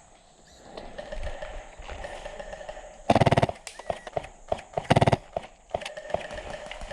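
HPA-powered airsoft light machine gun firing two short full-auto bursts, the first about three seconds in and a shorter one about five seconds in, with scattered single clicks between.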